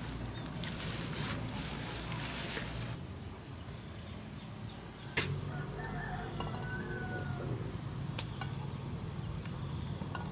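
Insects calling in a steady high-pitched drone from about three seconds in, after a few seconds of noisy rustle, with two sharp clicks later on.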